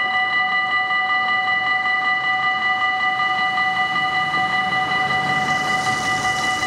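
Dutch level-crossing warning bell ringing steadily while the barriers close. From about five seconds in, the hiss of a car's tyres on the wet road rises under it.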